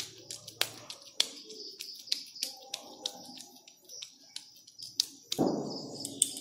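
Scattered light clicks and taps of food and utensils being handled in a kitchen, over a faint steady high hiss, with a louder brief rustle about five seconds in.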